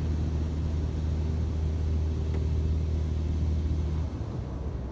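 Automatic car wash machinery running with a steady low hum, heard from inside the car, which cuts off about four seconds in.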